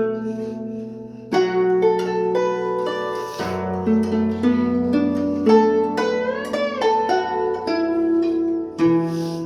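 Chinese plucked zither playing a slow melody of separate plucked notes that ring on, some bent up and back down in pitch around the middle.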